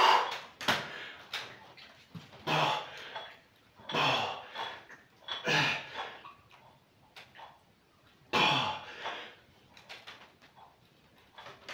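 A man's forceful exhalations and strained grunts, about six in all, a second or two apart and more spread out towards the end, as he works a heavy dumbbell through lying triceps extensions.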